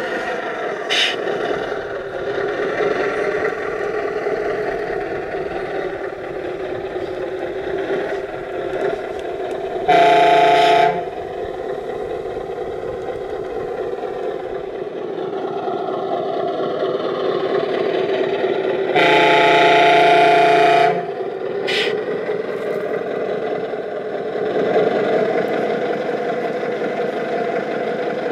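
Simulated heavy diesel engine running steadily from an RC MAZ-537 scale truck's sound module. A horn blares twice over it: a short blast about a third of the way in and a longer one of about two seconds past the middle. Two brief sharp clicks come near the start and just after the second blast.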